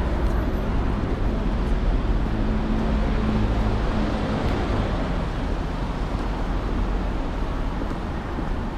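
Street traffic noise: a steady wash of passing vehicles, with a low engine hum that comes and goes about two to four seconds in.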